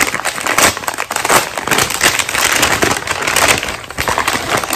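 Continuous close crackling and crunching from handling cooked seafood (shrimp and snow crab) in a seafood boil, with louder crunches now and then.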